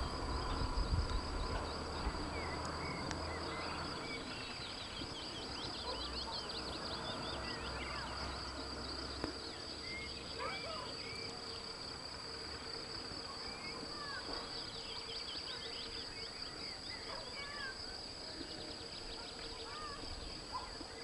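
Rural outdoor ambience: a steady high-pitched insect trill, with many short bird chirps and calls over it. A low rumble in the background stops about four seconds in.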